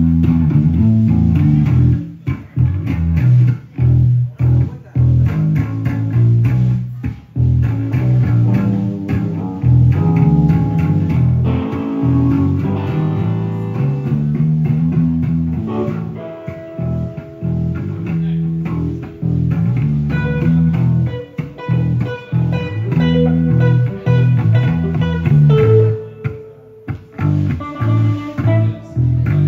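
Electric guitar and bass guitar played live through amplifiers: an instrumental with a steady bass line under chords. A higher lead guitar line of separate notes comes in about twenty seconds in.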